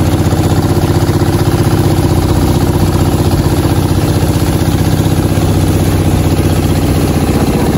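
Small boat engine running steadily at a constant speed close by, a fast, even throb.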